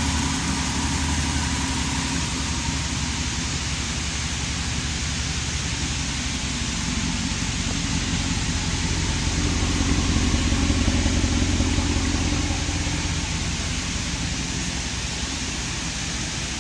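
Dodge Ram 1500's 5.7-litre Hemi V8 idling steadily, with no ticking: the tick-tick noise it made on a cold engine is gone after the repair. It grows somewhat louder for a few seconds around the middle.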